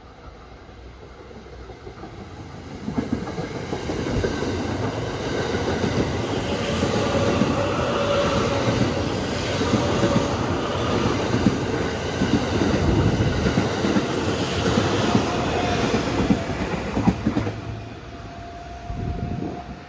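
Electric train passing close by without stopping: the rumble builds, then a long run of rapid clattering from the wheels over the rails, fading away near the end.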